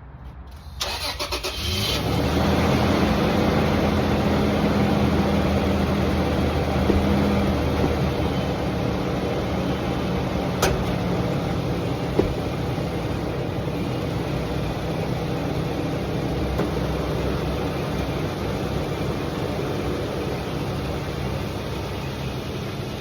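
Toyota pickup truck engine cranked by the starter for about a second, then catching and settling into a fast cold idle that runs steadily. Two brief clicks come midway.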